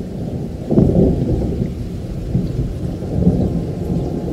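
Thunder rumbling low over heavy rain, swelling suddenly into a louder peal about a second in and rolling on unevenly.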